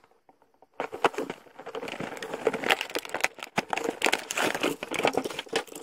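Cardboard toy box and its clear plastic window packaging being torn open and handled, sped up in fast motion: rapid, dense crinkling and crackling that starts about a second in.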